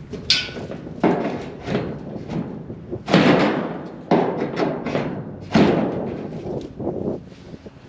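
A series of irregular heavy thumps and knocks, about six over several seconds, from parts being handled and fitted while assembling a tripod deer feeder.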